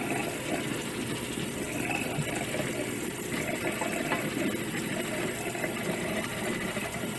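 Kitchen tap running steadily into a stainless steel sink, with hands rubbing and scrubbing wet, soapy dreadlocks.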